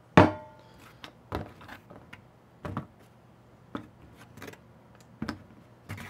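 Pistons and small metal tools being picked up and set down on a cardboard-covered table: about a dozen separate knocks and clinks, the first and loudest with a short metallic ring.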